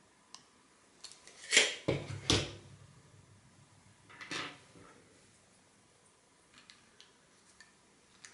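Handling knocks of hard plastic and metal parts on a tabletop: two loud clacks between one and a half and two and a half seconds in, another about four seconds in, then light plastic clicks near the end as a small plastic wedge is fitted to a cockspur window handle.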